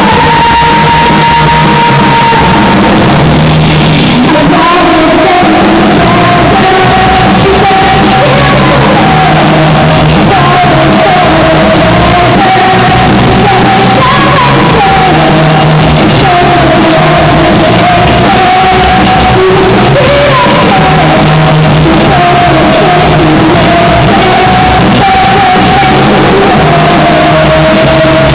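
Live rock band playing loud: a woman sings the lead melody into a microphone over guitar, drums and keyboard, all through stage amplification.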